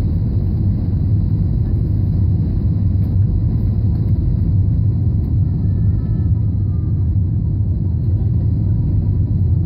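Steady low rumble of cabin noise inside an Airbus A320 descending on approach: engine and airflow noise heard through the fuselage.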